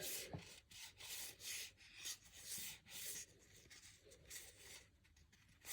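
Trading cards sliding against one another as they are flipped through by hand: faint, short papery rubbing strokes, about two a second.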